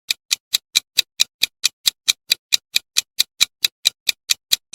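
Countdown timer sound effect: a clock-like tick repeating steadily at about four and a half ticks a second.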